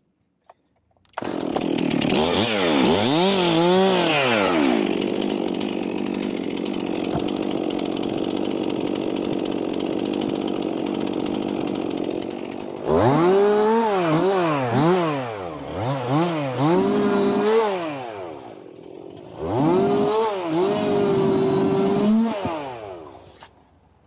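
Two-stroke chainsaw engine comes in about a second in and revs up and down, then runs steadily for several seconds. It is then blipped up and down several times, dips briefly, revs again, and dies away near the end.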